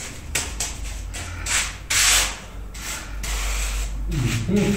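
Cement screed mortar being spread over the floor with a hand tool: a few separate scraping strokes, the longest and loudest about two seconds in.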